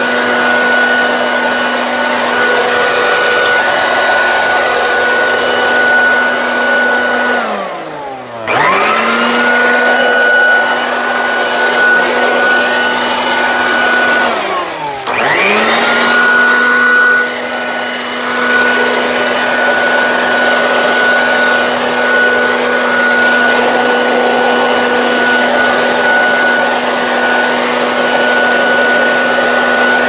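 Branco BSA 800C 2000 W electric leaf blower running in blower mode: a steady high motor whine over rushing air. About eight seconds in, and again about fifteen seconds in, the motor briefly winds down and then spins straight back up to full speed.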